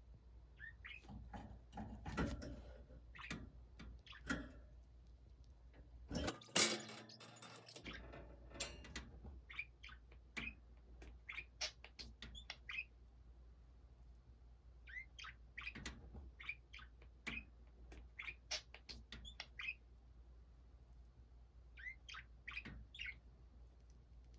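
Budgerigars chirping in short, scattered calls, with a louder burst of chattering about six seconds in.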